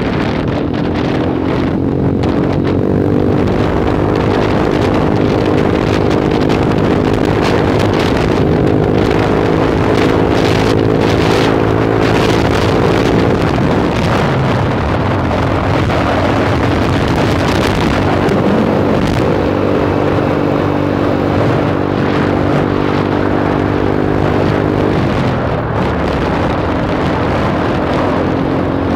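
Small motorcycle engine running at a steady cruise, heard from the rider's seat with wind rushing over the microphone. The engine note fades out briefly twice, a little before halfway and again near the end.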